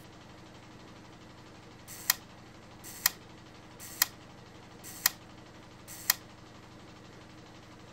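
Camera shutter clicking five times, about once a second, each sharp click led by a softer one, over a steady low hum.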